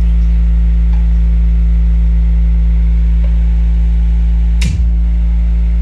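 A loud, steady, deep bass tone held through the DJ sound system's bass speakers during a bass sound check, with a brief click about three-quarters of the way through.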